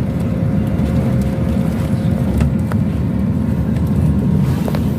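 Steady low rumble of a bus's engine and road noise, heard from inside the cabin, with a few faint clicks.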